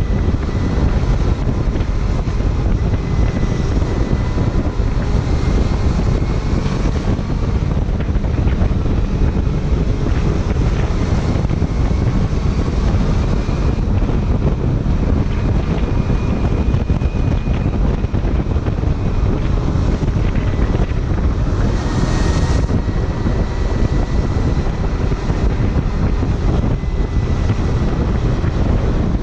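Kawasaki Ninja 250 motorcycle riding at speed, its engine under the heavy, steady rush of wind on the microphone, with a faint whine that drifts in pitch. A short swell of hiss comes about three-quarters of the way through.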